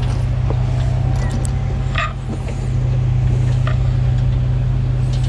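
Diesel engine of a single-drum road roller idling steadily, running after its clogged fuel-line banjo bolt and screen filter were cleaned. A few light clicks come from hands working at the engine.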